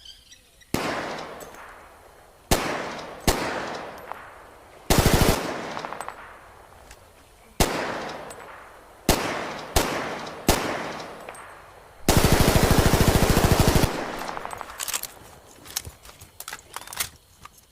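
Thompson submachine gun firing .45 ACP: single shots a second or more apart, a short burst about five seconds in, and a long full-auto burst of nearly two seconds about twelve seconds in. Each shot trails off in echo. A scatter of lighter clicks and rattles follows near the end.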